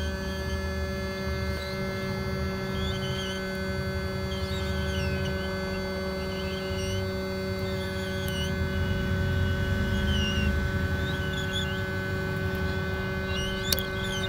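Hot-air rework station blowing on a phone circuit board: a steady electrical hum over a low rush of air as it heats the earphone socket's solder until it melts. A single small click near the end as the socket is lifted free with tweezers.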